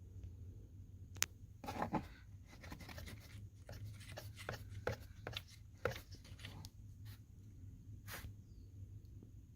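Handling noises: a sharp click a little over a second in, then about five seconds of rubbing and scraping broken by quick taps, and one more click near the end, over a low steady hum.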